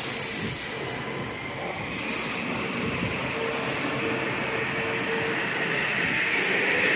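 Metro-North M8 electric multiple-unit train pulling away from the platform: a hiss of air as it starts, then the traction motors whining steadily higher in pitch as it gathers speed.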